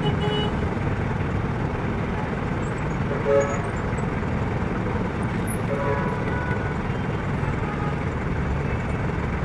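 Steady city street traffic noise from passing cars, with a short car horn toot about a third of the way in.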